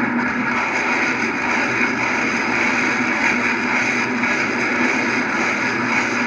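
Multiple rocket launcher firing a salvo: a loud, steady rushing roar of rockets leaving the tubes, with no separate blasts standing out.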